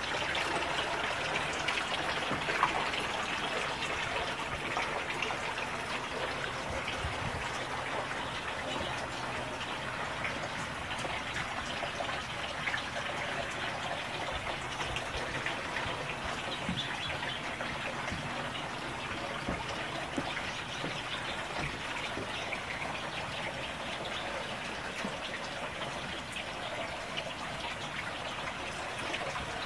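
Steady trickling and splashing of running water, even and unbroken throughout.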